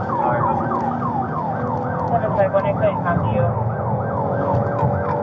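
Police siren in fast yelp mode, its pitch sweeping up and down about three times a second, heard from inside a patrol car in pursuit, over the car's engine and road noise.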